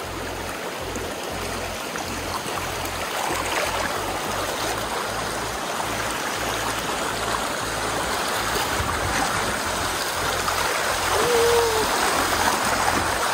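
Shallow river water rushing and babbling over rocks around a bamboo raft, getting louder toward the end as the raft enters rougher white water.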